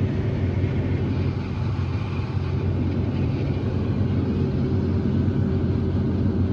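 Combine harvester running steadily while harvesting corn: a constant low machinery drone.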